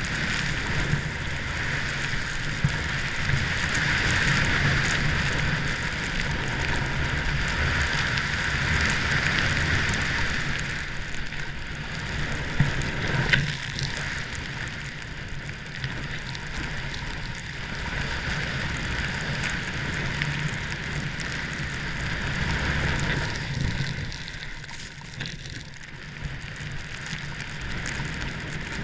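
Wind rushing over a helmet-mounted action camera's microphone, mixed with the steady hiss and scrape of edges sliding on snow during a fast run down a ski slope. A few sharp scrapes or knocks come about halfway through, and the sound eases and grows quieter for the last few seconds as the rider slows.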